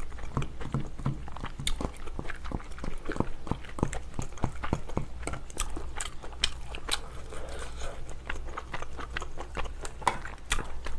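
Close-miked chewing and biting of a mouthful of pork kimchi stew, with many quick wet ticks and a few sharp clicks of a spoon and chopsticks against a metal pot and bowl.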